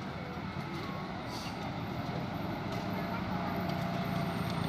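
A tour bus's diesel engine running, getting gradually louder, with faint voices in the background.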